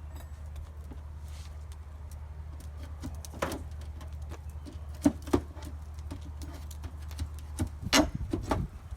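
Scattered sharp knocks and taps over a steady low rumble, starting about three seconds in, with the loudest single knocks about five and eight seconds in.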